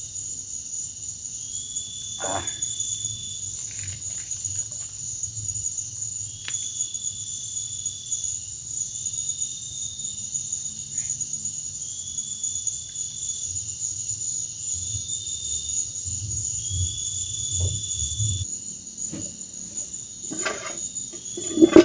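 Forest insects chirring: a steady high-pitched drone with a second, lower call in long notes repeating every two to three seconds. A few soft knocks, the loudest just before the end.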